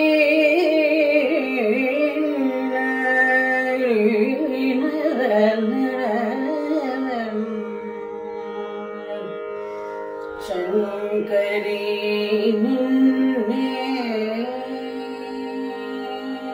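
A woman singing a slow, ornamented Carnatic vocal passage in raga Panthuvarali without words, her voice gliding and curling between notes over a steady drone. About eight seconds in her voice stops for nearly three seconds, leaving only the drone, then comes back.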